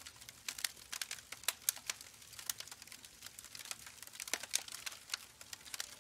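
Wood campfire crackling, with irregular sharp pops, several close together at times.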